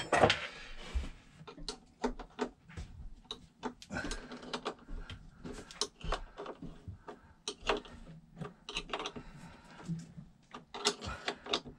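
Spanner tightening the nut on a battery terminal's cable lug: quick runs of small metal clicks and taps.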